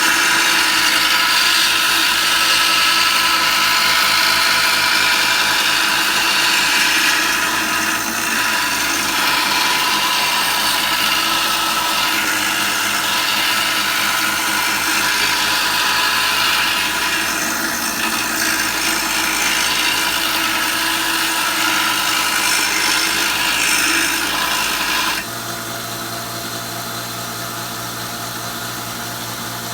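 Belt sander grinding a steel draw knife blade: a steady hiss of steel on the abrasive belt over the machine's running hum. About 25 seconds in the grinding stops and the machine runs on more quietly.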